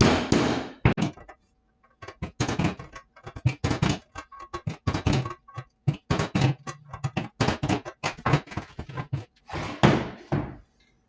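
Many light taps on screw heads, in quick groups, driving the screw points into the new wooden pneumatic board to mark where its holes must go to line up with the old valve stack.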